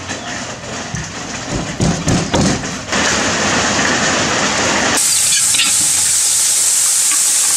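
Cooking sounds in quick succession: knife work on a wooden chopping board, then water sloshing as vegetables are washed in a basin, then, from about five seconds in, a loud steady sizzle of curry paste frying in a hot wok as it is stirred.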